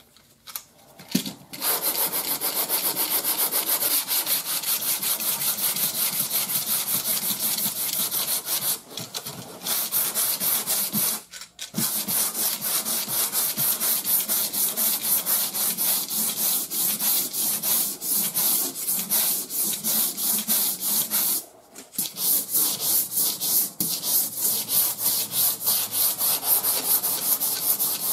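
80-grit sandpaper on a hand sanding block rubbing back and forth over high-build primer surfacer on a car body panel, in quick even strokes. This is the first cut of block sanding the primer flat. The sanding starts about a second and a half in and stops briefly three times.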